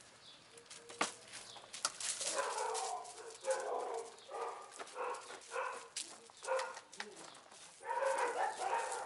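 Dogs giving a run of short, repeated barks and whines, starting about two seconds in.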